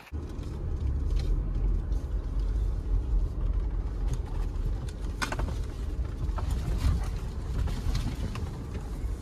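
Jeep Gladiator being driven along a rough dirt trail: a steady low rumble of drivetrain and tyres, with a few sharp knocks from the rough ground.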